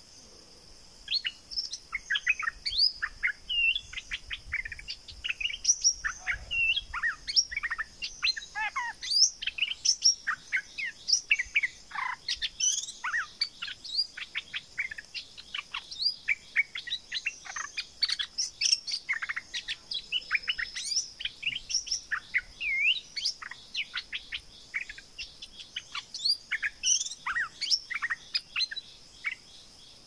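Stripe-throated bulbul singing a long, fast run of short, varied chirping and whistled notes. It starts about a second in and stops just before the end, over a faint steady high insect drone.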